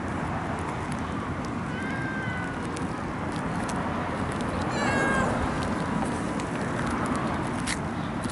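Stray cat meowing twice, a short call about two seconds in and a louder one about five seconds in, over the steady hiss of rain.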